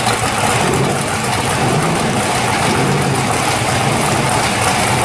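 Two drag-race V8 engines, a 1941 Willys coupe's and a 1969 Chevelle's, idling loudly side by side at the starting line.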